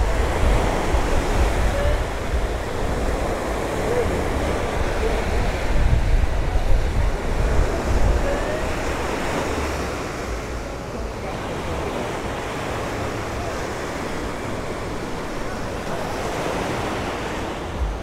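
Small ocean surf breaking and washing up onto the sand in a steady wash, with wind rumbling on the microphone, heavier in the first half.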